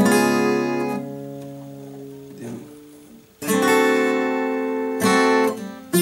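Steel-string acoustic guitar (a Yamaha) strummed: a chord rings out and fades over about two seconds, then after a short pause new chords are struck, about three and a half and five seconds in, sitting a little higher in pitch with the Glider rolling capo moved to a different fret.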